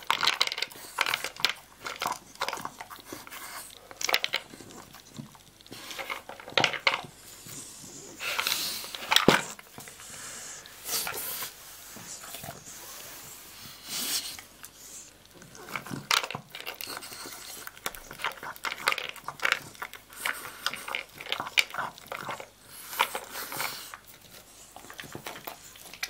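A dog eating dry kibble from a plastic slow-feeder bowl: irregular clicks, rattles and scrapes as it noses the kibble around the pegs, with crunching as it chews.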